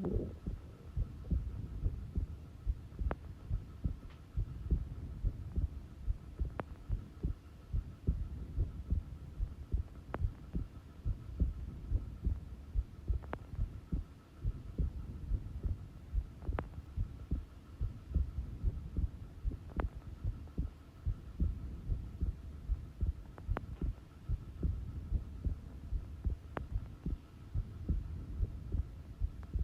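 Human heartbeat at rest: slow, steady, regular low thumps.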